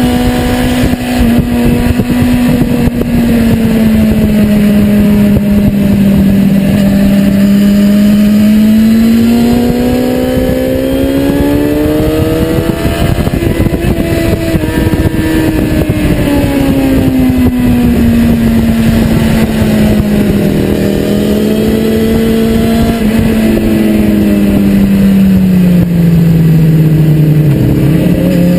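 2010 BMW S1000RR's inline-four engine running at high revs under way, its pitch climbing slowly over several seconds, falling back, then dropping lower near the end, with wind rushing over the microphone.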